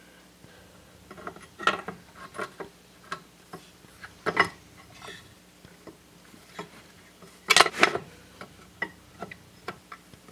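Irregular metallic clicks and taps as a camshaft gear is worked into mesh with the crankshaft gear of a small Briggs and Stratton engine to line up the timing marks, the loudest a quick double knock about seven and a half seconds in.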